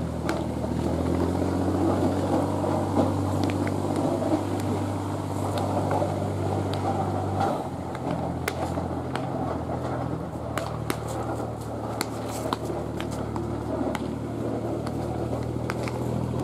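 Baseballs smacking into leather gloves as pitchers play catch: sharp, scattered pops. Under them run a steady low engine hum, which changes pitch about halfway through, and crowd chatter.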